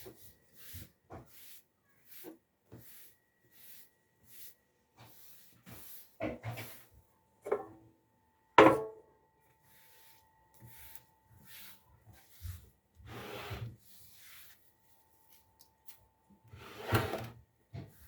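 A run of short, irregular rubbing and knocking sounds from objects being handled, with one sharper knock about eight and a half seconds in and a longer rub near the end.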